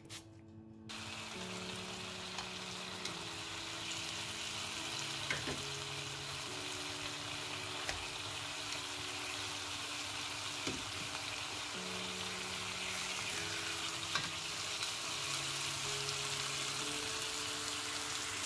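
Beef steaks sizzling in oil in a pan on high heat. The sizzle starts suddenly about a second in and runs on steadily, with a few light clicks.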